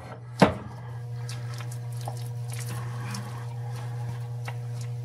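Silicone spatula scraping mashed banana out of a small ceramic bowl into a larger bowl: a sharp knock about half a second in, then faint scattered clicks and scrapes. A steady low hum runs underneath.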